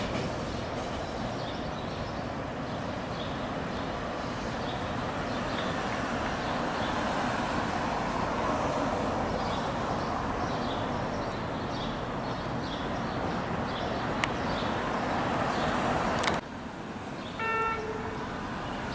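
TTC subway train running along the track with a steady rumble of wheels on rail. After a cut, one short horn toot from a subway train near the end.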